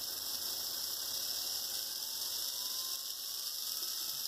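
Freshly rebuilt HO scale Life-Like GP38-2 pancake motor running steadily on bench power, turning its gears and wheels. The motor runs, so the rebuild has worked.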